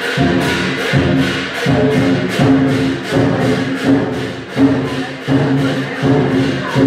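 Lion dance percussion: a big drum, clashing cymbals and a gong beat a steady, fast rhythm, the cymbals crashing a few times a second over the ringing of the gong.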